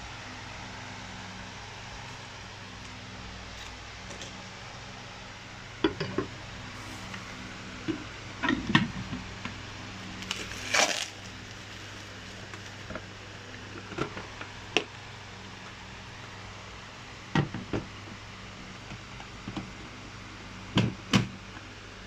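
Stainless steel blender bowl and parts being handled and fitted together: scattered knocks and clatters of metal and plastic parts set down and pushed into place, with a brief rustle of plastic wrapping near the middle, over a steady low hum.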